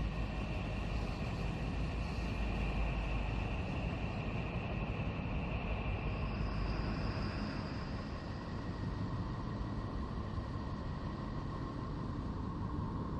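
Spacecraft radio or plasma-wave data turned into sound: a steady rumbling noise with faint held tones above it, and a thin high tone that comes in for a couple of seconds about six seconds in.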